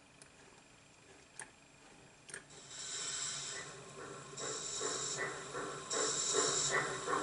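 Zimo DCC sound decoder playing steam-locomotive sounds through an O gauge model locomotive's speaker, turned up to overall volume 100. After a few soft clicks, a hiss of steam starts about two and a half seconds in and comes and goes in surges, with chuffs underneath at about three a second.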